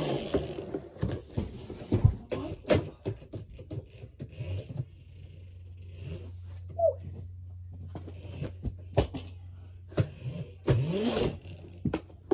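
A bike being ridden and knocked about: irregular clunks, rattles and scrapes, with a short wavering squeak about eleven seconds in. A steady low hum sets in about five seconds in.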